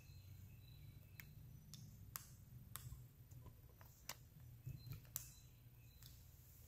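Near silence: low room hum with a few scattered faint clicks.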